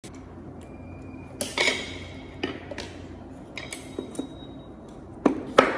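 Scattered clinks and knocks of kitchen utensils and a bowl, several sharp taps spread through, the two loudest close together near the end.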